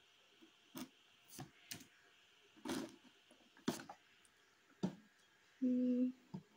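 About six separate computer-mouse clicks, irregularly spaced, as path points are picked in the pattern-drafting program. Near the end comes a short, steady low hum lasting about half a second.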